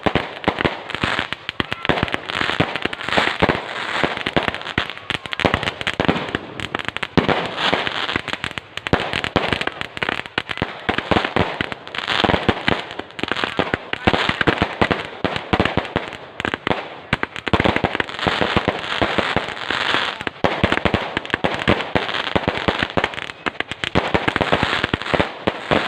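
Fireworks going off in a dense, unbroken barrage of rapid bangs and crackles.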